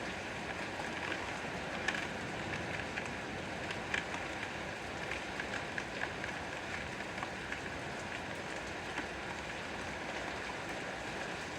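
Steady rain falling, with scattered louder drops and drips pattering on a surface.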